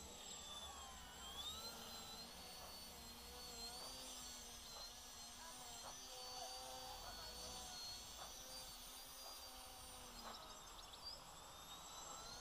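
Faint high whine of an FPV quadcopter's electric motors, its pitch rising and falling with the throttle.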